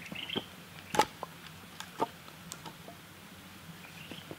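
Split firewood logs knocking as they are set down and stacked in a stone fire ring: one sharp knock about a second in, another a second later, and a few lighter clicks. A bird chirps briefly at the start.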